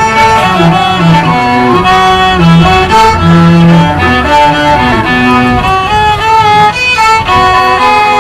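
Instrumental music on bowed strings, a violin melody in held notes over lower string parts.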